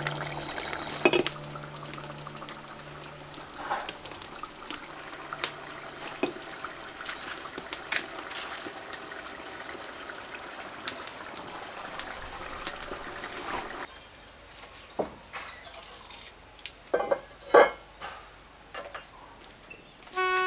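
Hot oil sizzling in a clay pot over a wood fire as chopped ingredients are dropped in, with light clinks of utensils. The sizzling falls away about two-thirds of the way through, leaving a few sharp knocks near the end.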